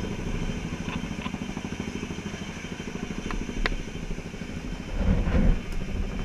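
Helicopter rotor beat overhead: a rapid, steady chop that swells louder about five seconds in.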